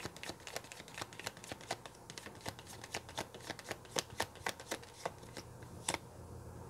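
Tarot deck being shuffled overhand, packets of cards dropped from one hand onto the other: a run of faint, irregular card clicks and slaps that stops about six seconds in.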